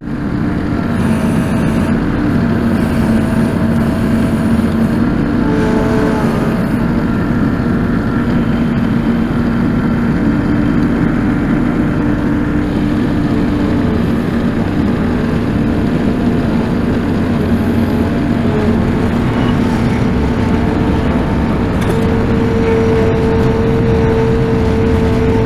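Farm tractor engine running steadily at working speed while its hydraulics lift a load, with a steady tone that grows stronger about three-quarters of the way through.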